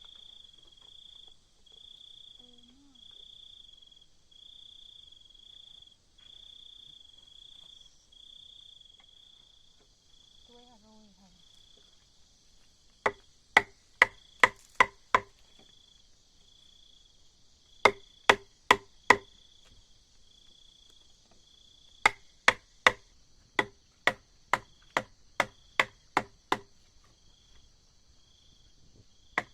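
Rapid sharp blows of a hand tool on wood, in bursts of four to a dozen strikes about two a second, starting about 13 seconds in. Insects chirp steadily in a high, pulsing trill, clearest in the first half.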